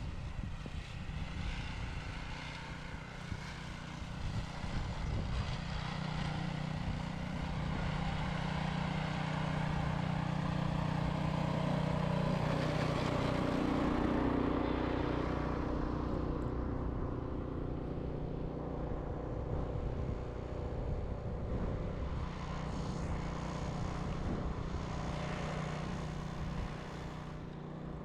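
An engine running steadily, growing louder toward the middle, with a brief shift in pitch at its loudest, then easing off.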